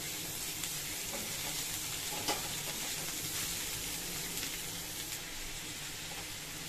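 Shredded cabbage, carrot and capsicum sizzling in oil in a metal wok (kadhai) as they are stir-fried and tossed with a silicone spatula: a steady frying hiss with light scrapes of the spatula and a short knock about two seconds in.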